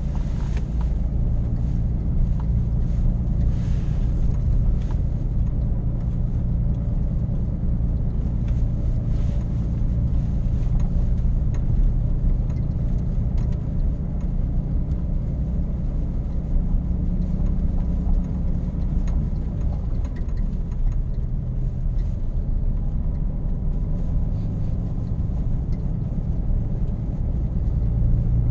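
Pickup truck being driven: a steady low rumble of engine and road noise, with a few faint clicks in the first few seconds.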